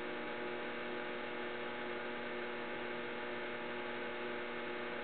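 Electric potter's wheel motor running at a steady speed, a constant even hum with no change in pitch.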